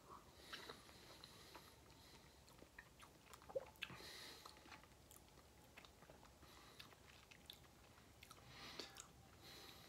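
Faint chewing of a soft cube of ripe mango, with small wet mouth clicks scattered through it.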